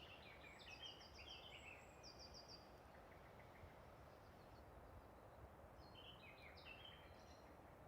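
Near silence: faint outdoor background hiss with two brief runs of small birds chirping, one at the start and one about six seconds in.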